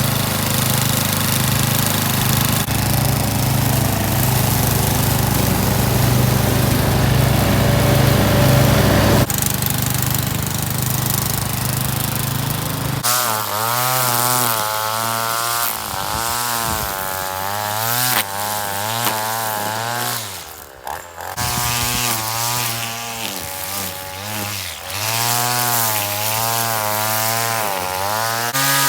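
A petrol engine runs steadily, then, a little under halfway through, a two-stroke petrol strimmer takes over, revving up and down again and again as it cuts, with one brief drop in revs.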